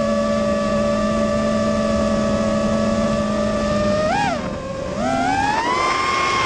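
FPV freestyle quadcopter's brushless motors whining at a steady pitch while cruising, with a quick throttle blip about four seconds in, then the whine climbing in pitch as the throttle is pushed up near the end.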